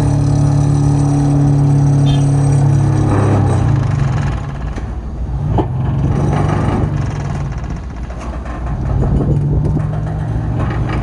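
Sheet pile driver machinery running with a loud, steady drone. The drone eases off about four seconds in and builds again near the end.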